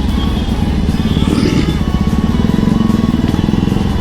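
Bajaj Pulsar NS200's single-cylinder engine running steadily at low revs in slow traffic.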